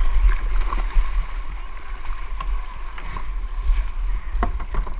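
Seawater sloshing and splashing around a kayak, over a steady low rumble on the microphone, with a few short sharp sounds near the end.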